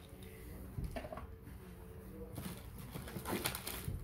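Faint handling noise: a light knock about a second in, then rustling and scraping in the second half.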